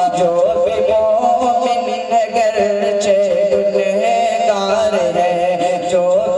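A boy's voice singing a naat through a microphone and PA, holding long, wavering, ornamented notes with no clear words.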